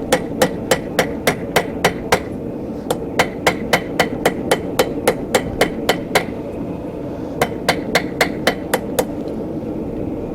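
Blacksmith's hammer striking hot mild steel on an anvil, ringing blows about three a second in three quick runs with short pauses between them, squaring up the bend of an S-hook.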